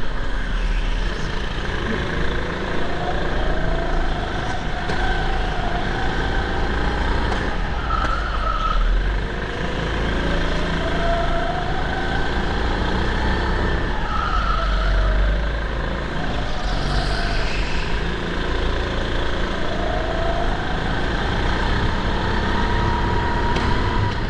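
Rental go-kart running flat out, heard onboard: its pitch climbs over a few seconds along each straight and drops back when slowing for the corners, several times over, over a steady low rumble.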